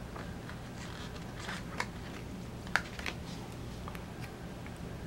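Paper sticker sheet handled and a sticker peeled off its backing: soft papery rustles and light clicks, with two sharper clicks near the middle.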